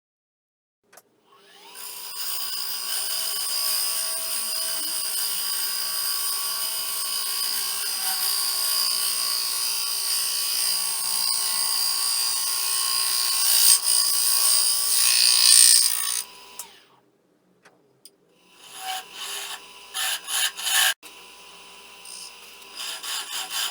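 A power tool working a piece of wood: a steady run of cutting noise with a steady motor tone for about fifteen seconds, stopping abruptly, then after a short pause several short, stop-start cuts.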